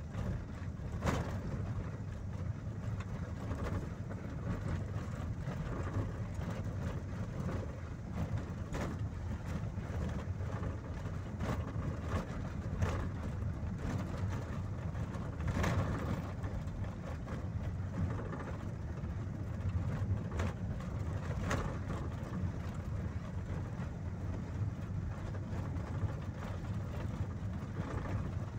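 Road vehicle's cabin noise while driving: a steady low rumble of engine and tyres, with a light knock or rattle now and then.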